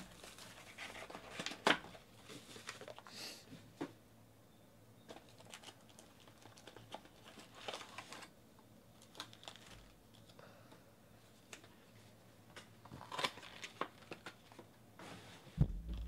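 Plastic shrink wrap crinkling and tearing off a sealed Panini Select football card box, then the box lid and foil card packs being handled: irregular rustling with sharp crackles, the loudest near the start and again a few seconds before the end.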